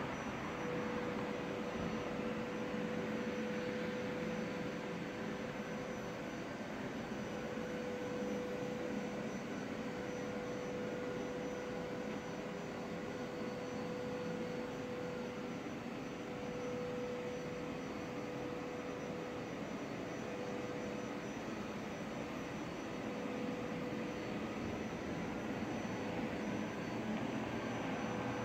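Steady outdoor background noise: an even rushing hum with a constant mid-pitched tone running through it, with no distinct events.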